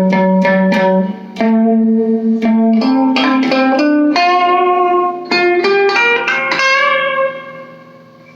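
Electric guitar through a small all-tube amp playing a melodic line of single picked notes with a clean tone. The last note rings on and fades away near the end.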